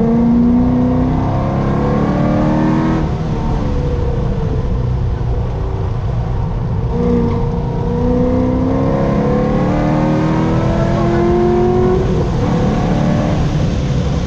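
Chevrolet Corvette C6 Z06's 7.0-litre LS7 V8 under hard acceleration on a racetrack. The engine note climbs in pitch, drops back, then climbs again for several seconds before dropping once more near the end.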